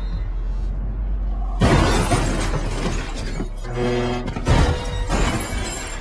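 A loud smash with glass shattering about one and a half seconds in, then more crashing impacts, as a body lands on a car. A short horn-like tone sounds near the middle, over a steady low rumble of rushing air.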